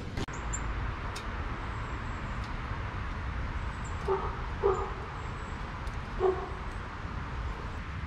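A dog barking three short times, a little apart, over steady outdoor background noise.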